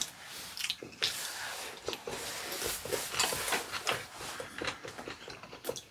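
Close-miked eating sounds: people chewing and slurping food, with wet, squishy mouth noises and a run of short clicks.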